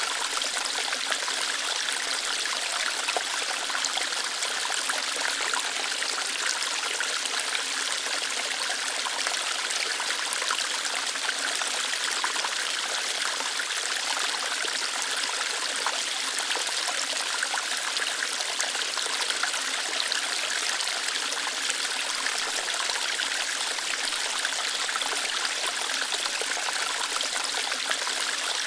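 Small waterfall flowing and splashing over rocks: a steady rush of water, bright and hissy, without a break.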